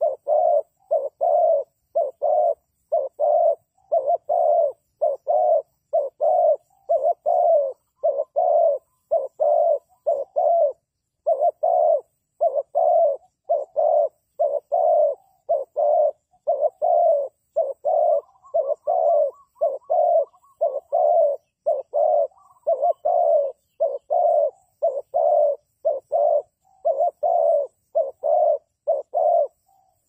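Dove cooing: a long, even run of short coos, about two a second, dropping to silence between each, with a brief pause about eleven seconds in and a stop just before the end.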